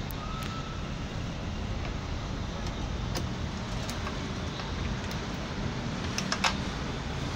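Steady low mechanical hum, with a few sharp metal clicks and taps as a wrench works a fitting on the heavy-equipment radiator's top tank, a small cluster of them near the end.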